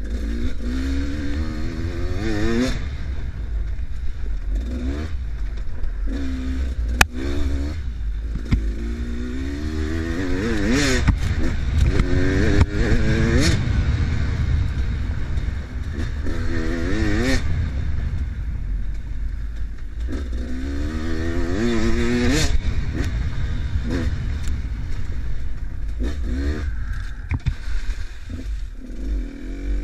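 Enduro dirt bike engine revving hard over and over, its pitch climbing then dropping as the rider shifts and rolls off, over a constant low rumble with knocks and clatter from the rough trail. Near the end the bike splashes through a muddy puddle.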